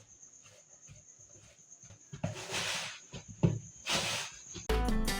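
Water poured into the mixing bowl, a short splashing hiss about two seconds in, followed by a knock and another brief hiss. Background music with plucked strings starts near the end.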